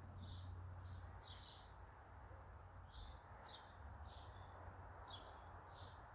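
Faint, short chirps of small birds, several of them at irregular spacing of roughly one a second.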